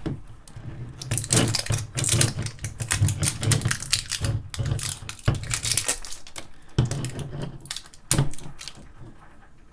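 Snack packages being opened by hand: a dense run of crinkling, crackling and tearing clicks, with one sharp snap about eight seconds in.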